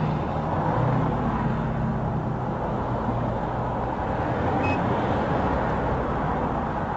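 Steady roadside traffic noise with a vehicle engine running; its low hum eases off about four seconds in.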